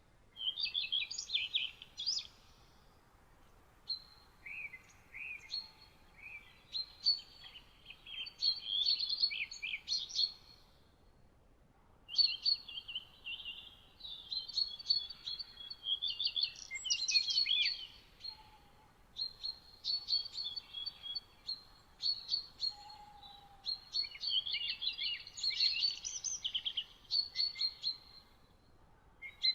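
Songbirds singing: fast, high, twittering phrases a few seconds long, repeated with short pauses between.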